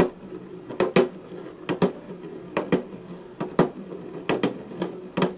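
Blue glass bottles knocking on a tabletop as they are rolled, spun and set down by hand: sharp knocks, mostly in quick pairs, in a steady rhythm of a little under one pair a second, over a steady low hum.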